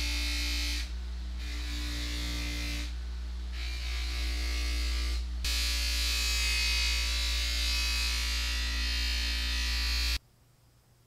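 Bench grinder fitted with a buffing wheel, its motor humming steadily while the steel of a nutcracker is polished against the wheel with a rushing hiss. The hiss drops out briefly twice as the piece is lifted off. The sound cuts off suddenly near the end.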